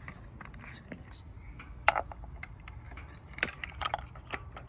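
Scattered metallic clicks and clinks of a spark plug socket and extension as a new NGK iridium spark plug is fitted and threaded in by hand, the sharpest about two seconds and three and a half seconds in.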